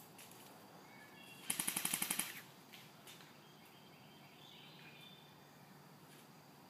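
Airsoft gun fired on full auto: one short burst of about ten rapid shots, about a dozen a second, a little over a second and a half in. Faint bird chirps come and go around it.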